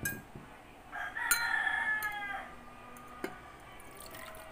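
A rooster crowing once in the background, starting about a second in and lasting about a second and a half, with its pitch dropping at the end. A few short clicks are also heard.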